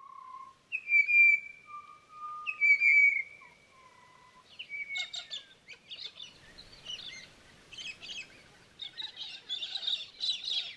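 Birdsong: a few long, clear whistled notes in the first few seconds, then a busier chorus of short chirps and twitters that grows denser near the end.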